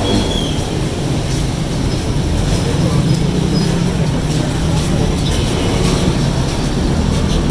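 Busy market street ambience: many people talking over steady traffic noise.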